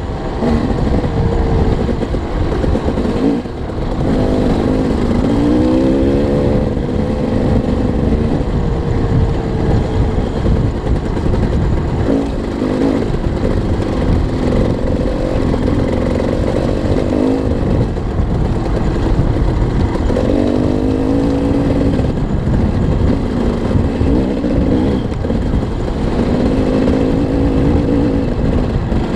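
KTM 250 EXC-F dirt bike's single-cylinder four-stroke engine under riding load, its pitch climbing and dropping repeatedly as the throttle is opened and gears change, with a short throttle-off about three and a half seconds in.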